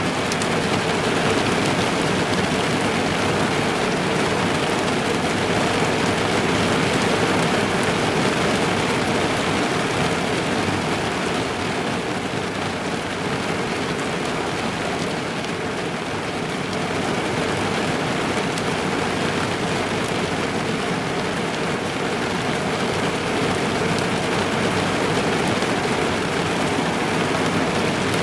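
Rain falling steadily on a car's roof and windows, heard from inside the car as a dense, even patter.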